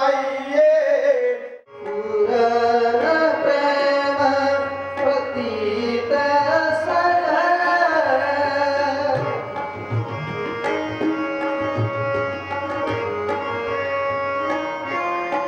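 Sikh kirtan: male voices singing to harmonium, with tabla playing. A short break about a second and a half in, after which the music resumes. In the second half the held harmonium tones and the tabla strokes stand out.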